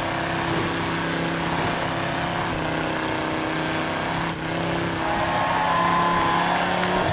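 Steady motor noise of cars racing, an even drone over a hiss, with a higher tone joining about five seconds in.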